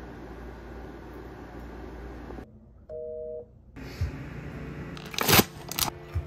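A short two-tone beep like a telephone busy tone about three seconds in. Near the end, a few sharp crunches as a bite is taken from a crunchy granola bar, the first the loudest.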